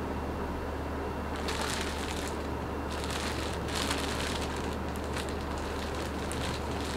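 Thin clear plastic garment bag crinkling and rustling in irregular bursts as it is handled and pulled open around a folded shirt, starting about a second and a half in, over a steady low hum.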